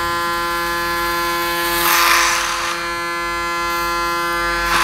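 Electric hair clipper buzzing steadily, with a louder, rougher rasp about two seconds in as the blades run through hair.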